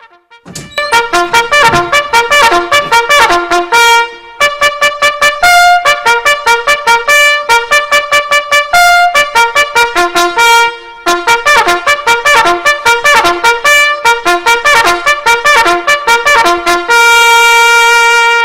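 A trumpet plays a fast bugle-call tune, loud and rapidly tongued on a handful of repeated notes, with two brief breaks. It ends on one long held note.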